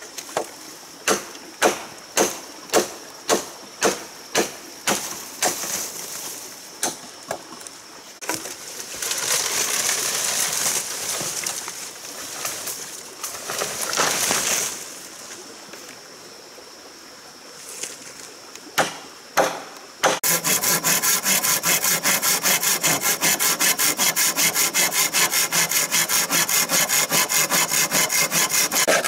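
A machete chopping into a green bamboo stalk, sharp strikes about two a second; then the cut bamboo pole swishing and rustling through leafy undergrowth as it is pulled free, and a few more chops. About two-thirds of the way in, a saw starts cutting through the bamboo pole in fast, even strokes.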